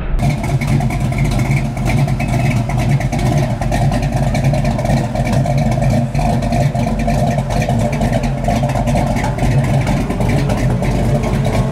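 Early-1970s Chevrolet C10 pickup's engine idling steadily through its dual exhaust tailpipes.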